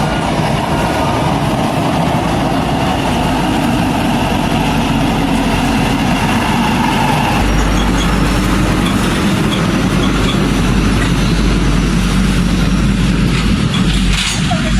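A vehicle engine running steadily at close range, with a low rumble that grows deeper and stronger about seven seconds in.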